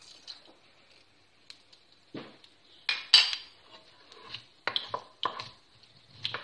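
Wooden spoon stirring mustard seeds in oil in a kadai, knocking and scraping against the pan in a string of separate strokes, the loudest about three seconds in.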